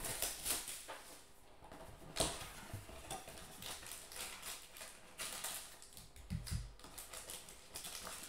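Cardboard trading-card hobby box being opened by hand: the lid flap and foil-wrapped packs inside give scattered clicks, taps, scrapes and rustles.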